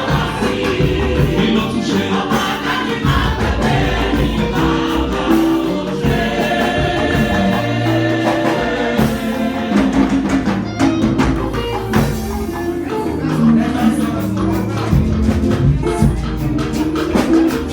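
Church choir singing a gospel anthem with instrumental accompaniment and a steady percussion beat.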